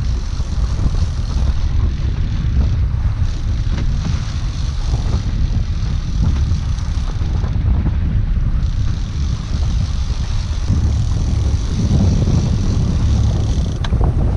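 Steady wind rumble on the microphone over the running outboard engine of a small fishing boat, an Evinrude E-TEC 90 hp two-stroke.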